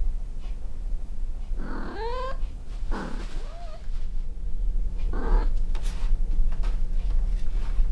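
Kitten meowing three times. The first call rises in pitch, the second rises then falls, and the third is short. A steady low rumble runs underneath.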